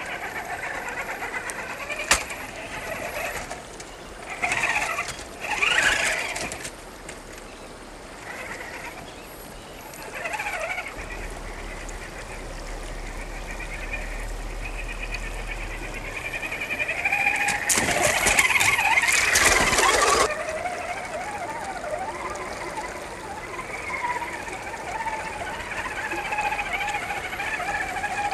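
A 1/10-scale RC rock crawler's brushless electric motor and gearbox whine, rising and falling with the throttle as the crawler climbs rocks in a shallow creek. Its tyres splash through the water in bursts, the longest about two-thirds of the way through.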